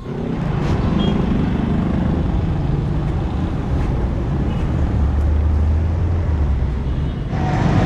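Street traffic rumble, with a steady low engine drone for about two seconds in the second half.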